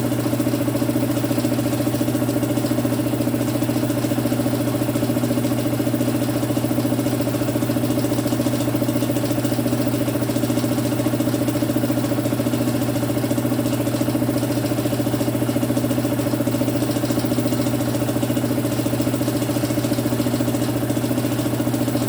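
Electric compressor running steadily, with an even motor hum that holds its pitch throughout.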